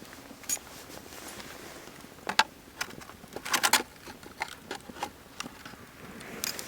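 Wood fire crackling: irregular sharp pops and snaps over a faint steady hiss, with a quick flurry of pops about three and a half seconds in.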